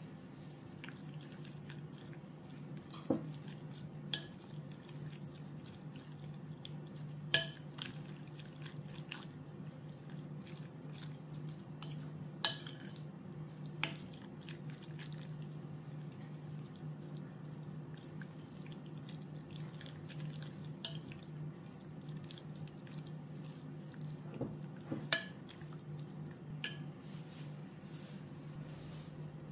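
A handful of short, sharp clinks and taps of kitchen utensils and dishes, about eight of them, scattered irregularly over a steady low hum.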